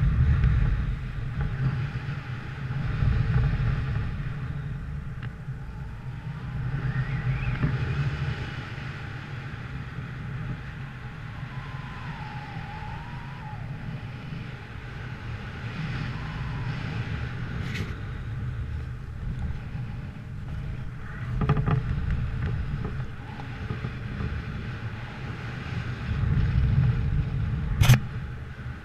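Wind buffeting the camera's microphone: a low rumble that swells and eases in gusts, with a sharp click just before the end.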